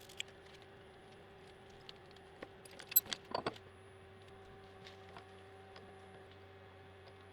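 A few light metallic clinks and taps in a short cluster about three seconds in, over a faint steady hum.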